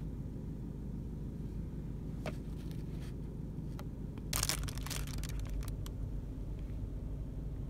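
Steady low rumble with a few light clicks. About four and a half seconds in comes a short rustle of packaging being handled.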